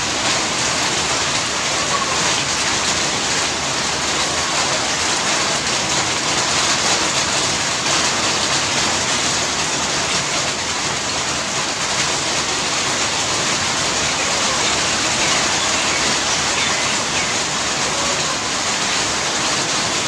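Rain falling steadily onto a shallow muddy puddle, the drops splashing on the water's surface.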